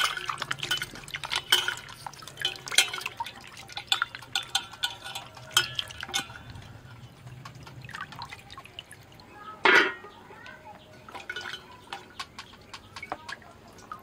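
Hands washing vegetables in water in a stainless steel bowl: splashing, dripping and small clinks against the steel, busiest in the first half. One brief louder sound about ten seconds in.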